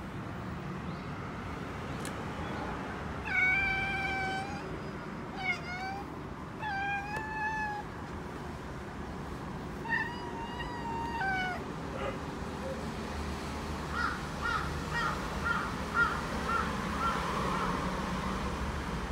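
Domestic cat giving several soft, bending meows while watching birds through a window. About two-thirds of the way through it breaks into a quick run of short chirps, roughly three a second: the chattering ('cracking') a cat makes at prey it can't reach.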